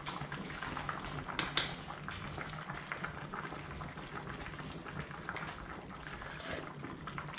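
Pot of beef and pak choy soup still bubbling on the hob just after the heat is turned off: a steady fine crackle of small bubbles. A couple of short sips from a spoon stand out in the first two seconds.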